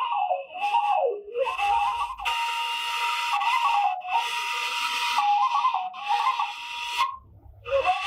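Washint, the Ethiopian end-blown flute, playing a slow solo melody in a breathy tone: long held notes decorated with quick trills and turns, with a brief pause for breath about seven seconds in.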